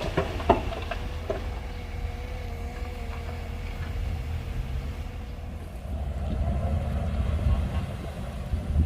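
Shantui DH17C2 crawler bulldozer's diesel engine running with a low rumble, a few knocks in the first second or so, and a steady whine for a few seconds; it gets louder about six seconds in.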